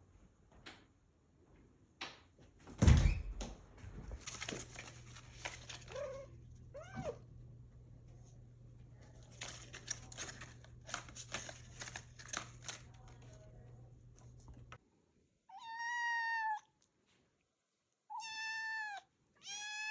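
A kitten meowing three times near the end, in high, drawn-out calls of about a second each. Before that come scattered knocks, a loud thump about three seconds in, and a low steady hum.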